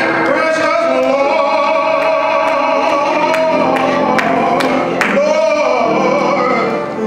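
A man singing a gospel solo into a handheld microphone, holding long notes and sliding between them, heard through the church's sound system.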